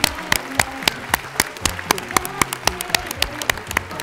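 Applause on stage, led by sharp, evenly paced hand claps close to the lectern microphone, about four a second, over quiet background music.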